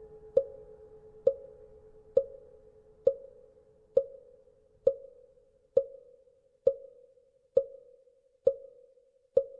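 Wooden fish (mõ) struck in a steady, slow beat, about one hollow knock a second, each with a short ring. A faint hum dies away over the first few seconds.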